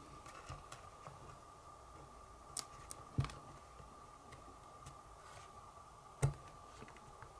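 Small clicks and taps of fingers pressing a cable back into its connector on the circuit board of a Logitech Squeezebox Boom radio, with two louder knocks against the plastic case about three and six seconds in.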